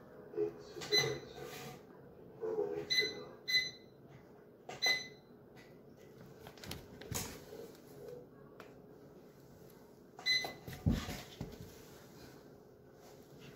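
Scattered short clicks and knocks, several with a brief ringing tone, and a dull thump about eleven seconds in: handling of a small quadcopter drone as it is set down on a wooden floor.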